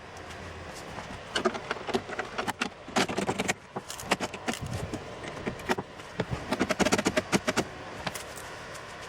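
Irregular clicks and rattles of plastic and metal parts as a pickup's exterior door handle assembly is handled and worked into place, in two busier bursts.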